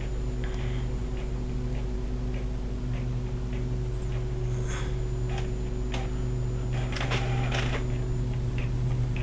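Steady low electrical hum, with a few faint scattered clicks and a brief rustle about seven seconds in.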